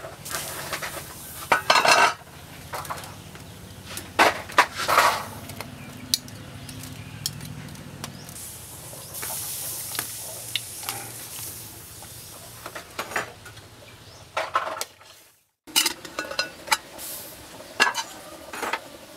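Clanks and clinks of an aluminium cooking pot, its lid and a metal spoon being handled, with a hiss of steam from boiling water about nine to eleven seconds in.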